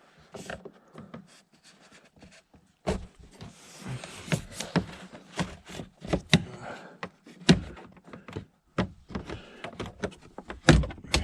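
Hand work under a car's dashboard: an irregular run of clicks, knocks and rustling as clips, connectors and wiring are handled, with a couple of heavier thumps near the end.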